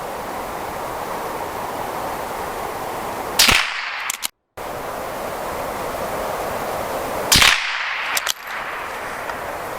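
Two suppressed shots from a CZ 455 bolt-action .22 LR rifle firing CCI Mini-Mag high-velocity rounds, about four seconds apart, each a sharp crack over steady background noise.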